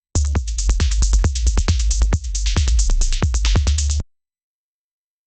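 Anime-style caption (telop) sound effect: a synthesized electronic jingle of rapid drum-machine hits over a deep steady bass. It lasts about four seconds and cuts off abruptly.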